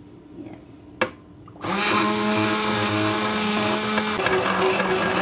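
A sharp knock about a second in, then a hand-held immersion blender switches on and runs steadily, grinding boiled rice and water into a paste in a small stainless steel pot.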